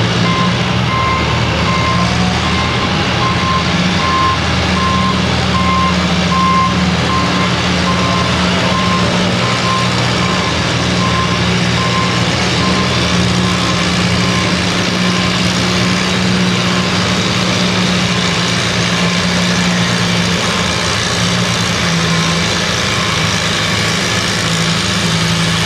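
Antique Farmall tractor's engine running steadily under load, pulling the weight-transfer sled down the track. A regular series of electronic beeps sounds over it for about the first twelve seconds.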